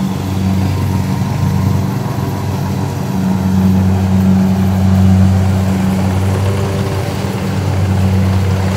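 Tracked rice combine harvester's diesel engine working hard as the machine churns through deep, boggy mud. The steady engine drone swells a few seconds in and again near the end.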